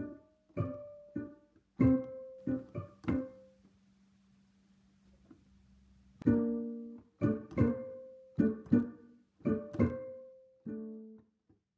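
Background music of plucked string notes, each ringing and fading, that stops for a couple of seconds midway and resumes with a strong chord.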